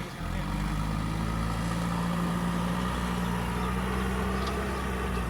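Diesel engine of heavy earthmoving equipment running steadily at a constant speed.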